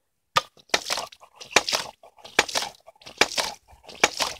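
Homemade hydraulic ram pump's waste valve chugging: about five sharp clacks, one every 0.8 seconds or so, as the plunger slams shut, each followed by a splash of water spurting from the valve.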